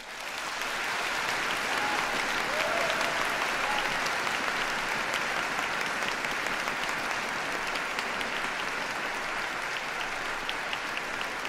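Audience applauding in a large concert hall, starting suddenly as the music ends and holding steady.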